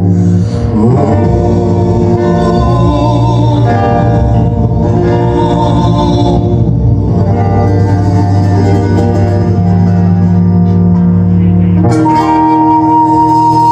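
A live band playing at a sound check: guitars and drums with a wavering melody line over them. About twelve seconds in, a steady held note on a flute-like wind instrument comes in.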